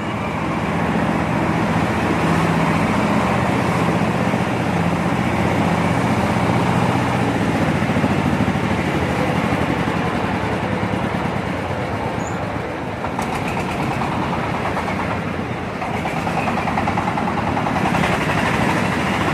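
Engine-driven corn sheller running steadily, its engine humming under a dense noisy rattle of the shelling drum.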